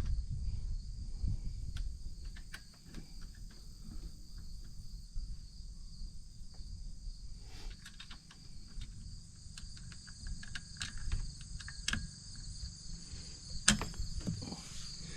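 Steady high-pitched insect chirring, like crickets, with scattered small clicks and taps of a metal bolt and tool being worked on the phone mount's roll-bar clamp; two sharper clicks come near the end.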